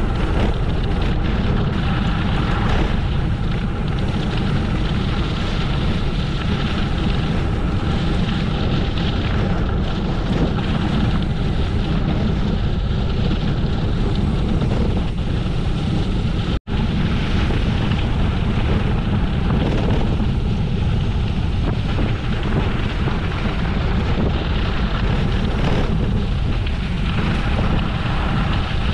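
Wind buffeting the microphone of a camera riding along on a gravel bike, a loud steady rumble with road and riding noise mixed in. It drops out for an instant a little past halfway.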